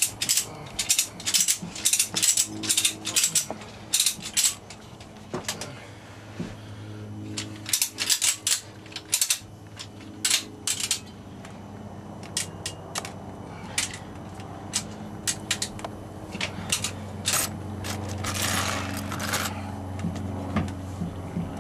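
Ratchet strap being cranked tight around a sailboat's old diesel engine: quick runs of sharp ratchet clicks with pauses between, over a steady low hum.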